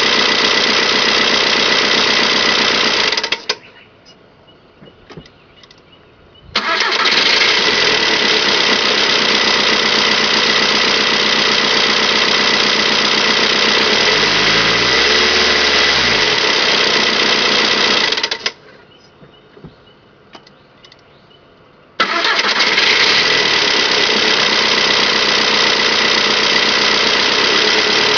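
2002 Volkswagen Jetta TDI's 1.9-litre four-cylinder turbodiesel running with diesel clatter. It is shut off about three seconds in and restarted a few seconds later, catching quickly. It revs up and back down once, then is shut off and restarted again, with faint clicks while it is off.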